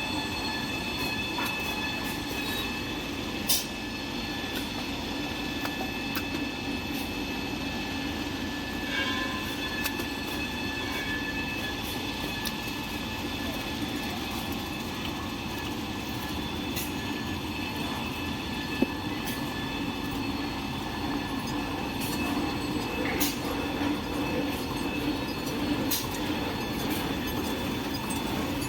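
Small toilet paper making machine running steadily: a continuous mechanical rumble with several steady whining tones over it and occasional light clicks.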